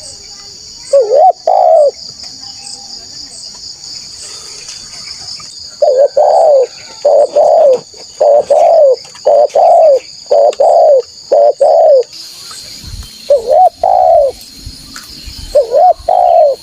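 Spotted dove (tekukur) cooing, loud repeated coos in groups: a pair about a second in, a run of about seven notes in the middle, then two more pairs near the end. A steady high insect drone runs underneath.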